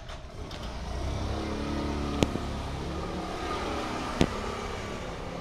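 A motor vehicle's engine running, swelling about a second in and holding steady, with two sharp clicks about two seconds apart.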